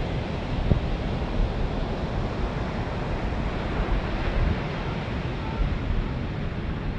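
Ocean waves washing on a beach, a steady rushing noise, with wind rumbling on the microphone. A brief low thump comes just under a second in.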